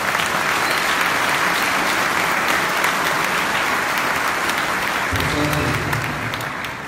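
Congregation applauding: steady clapping that thins out and fades near the end.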